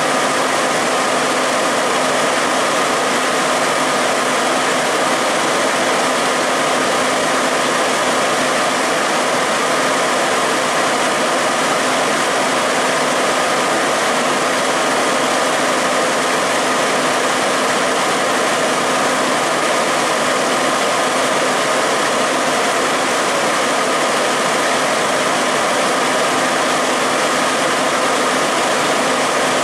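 Fire engine's diesel engine running steadily at one unchanging pitch, a constant hum over a hiss.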